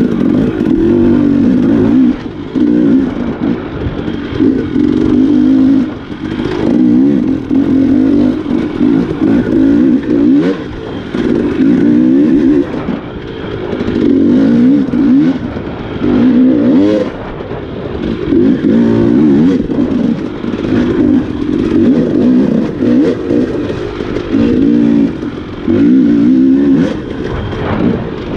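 Enduro dirt bike engine revving hard and dropping back again and again as the throttle is opened and closed, with scattered knocks and clatter.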